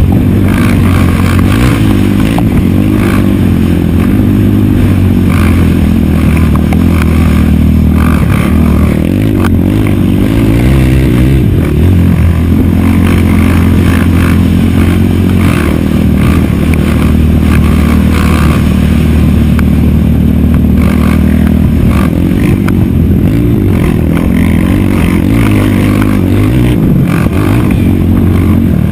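Racing quad's single-cylinder four-stroke engine at full race pace, revving up and down with throttle and gear changes, heard close from an onboard camera, with rattles and knocks from the machine over the bumps.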